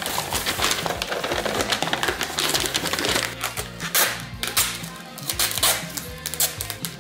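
Background music with a steady bass line, over irregular paper crinkling and rustling with a few sharp knocks, from glassware being wrapped in packing paper.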